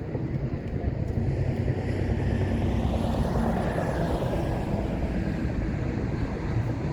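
A vehicle running: a steady low rumble and noise that swells a little in the first few seconds, with a faint high whine slowly falling in pitch.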